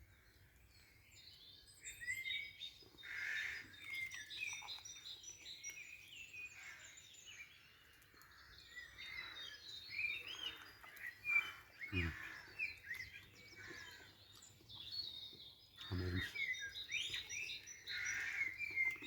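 Several small birds singing and chirping in woodland, short varied calls overlapping throughout, with two brief low vocal sounds about twelve and sixteen seconds in.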